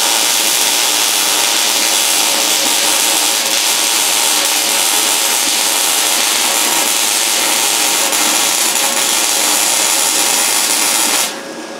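Electric arc welding on the steel door frame of a Land Rover Defender 110: one long continuous weld with a steady hiss, which stops about half a second before the end.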